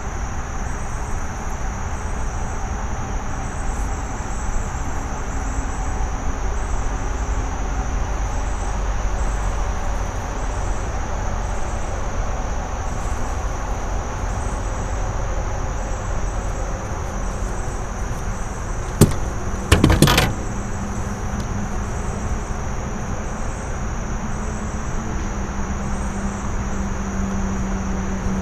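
Night insects chirring in one steady high tone over a steady low rumble. Two short sharp knocks about nineteen and twenty seconds in.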